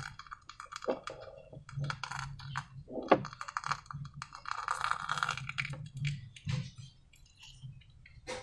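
Slime being worked by hand, giving irregular small sticky clicks and crackles, thinning out over the last couple of seconds. A faint steady low hum sits underneath.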